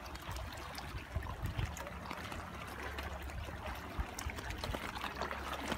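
Shallow seawater lapping and trickling among shoreline rocks and pebbles, a steady wash dotted with small splashes and clicks.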